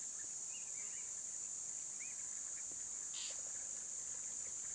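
Steady high-pitched insect buzzing, with scattered short bird chirps over it and a brief rustle about three seconds in.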